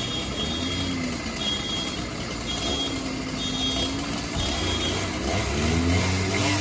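Fire engine's aerial ladder at work: the truck's engine running steadily while a high warning beeper sounds about once a second, five beeps, then stops near the end.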